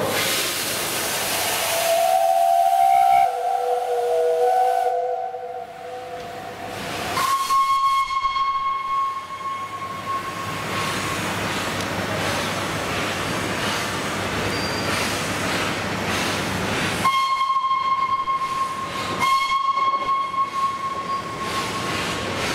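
Peppercorn A1 Pacific steam locomotive 60163 Tornado hissing loudly as it vents steam, then a few seconds of lower, wavering tones. Its steam whistle then sounds a long steady blast a third of the way in, and another near the end with a brief break in it, over continuing steam hiss.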